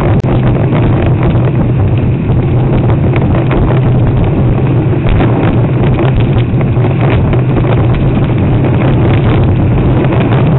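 Loud steady rumble of wind buffeting the camera microphone, with water rushing past a surfboard moving across the water. A single short click about a quarter second in.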